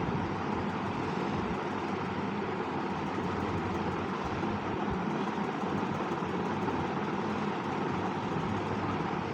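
Steady background rumble and hiss, even throughout, of the kind an idling vehicle engine or distant traffic gives.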